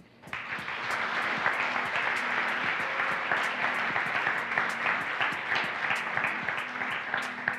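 Congregation applauding: dense, steady clapping that starts a moment in and holds at an even level.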